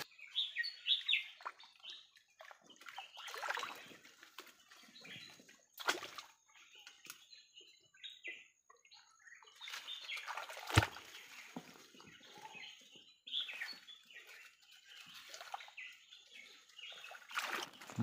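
Water sloshing and splashing in a shallow rocky stream as hands feel around and under stones for crabs, with a few sharp knocks, the loudest about eleven seconds in. Birds chirp in the background.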